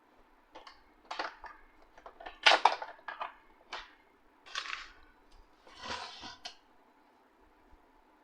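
A run of short clicks, knocks and metallic clatters as a replacement drive motor is handled and fitted into a laser printer's frame, loudest about two and a half seconds in and stopping after about six and a half seconds.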